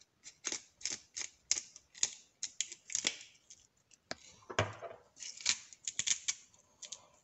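Hand-held spice grinders twisted over a bowl: a rapid run of short, gritty crunching clicks, about three a second, with a duller knock about halfway through.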